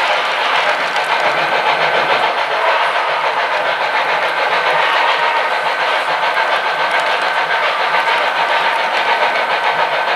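Model trains running on a layout: a steady whir of small electric motors and wheels rolling on the track, with a thin high whine held throughout.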